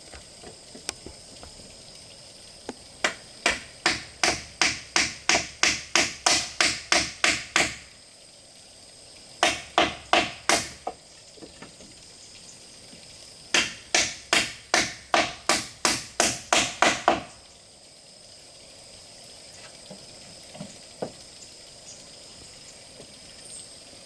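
Repeated blows of a hand tool, about three a second, in three runs with short pauses between them: a long run, a short one, then another long one.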